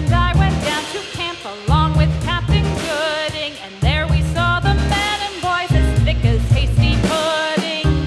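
Background music: an upbeat song with singing over a steady bass beat.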